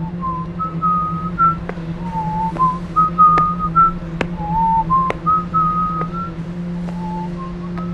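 A person whistling a slow, stepping tune over a steady low drone, with several sharp clicks scattered through it.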